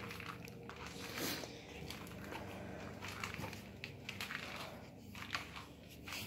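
Faint rustling and a few light clicks and knocks from handling, over a low steady hum.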